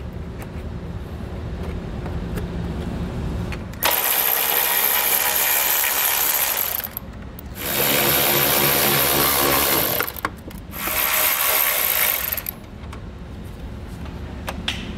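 Power ratchet running in three bursts of a few seconds each, with short pauses between, as it backs out 10 mm bolts holding a plastic washer fluid reservoir. Faint handling noise comes before the first burst.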